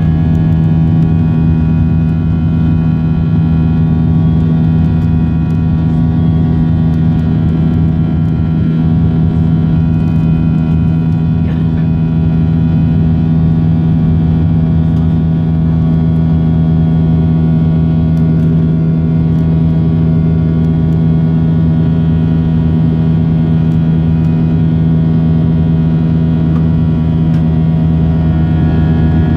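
Cabin noise of a Boeing 737-700 in its climb after takeoff: the CFM56-7B turbofan engines and airflow make a loud, steady drone, with a deep hum and a set of steady whining tones above it.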